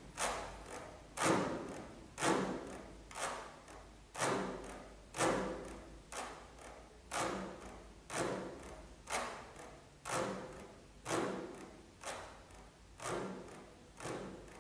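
Accordion sounding a slow, steady pulse of short, thudding accents, about one a second, each fading away before the next.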